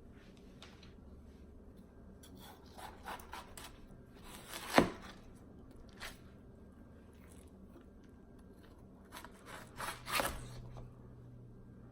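Watermelon being eaten close to the microphone: a few small crisp crunches, then one loud sharp crunch about five seconds in, a lighter one a second later, and another group of crunches near the end.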